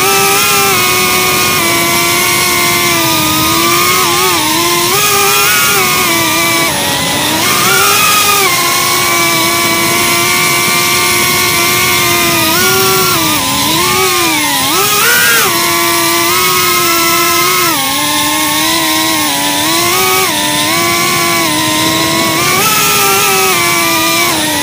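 FPV quadcopter's brushless motors and propellers whining, recorded by the drone's own onboard camera. Several pitches sound together, and they rise and fall repeatedly as the throttle changes.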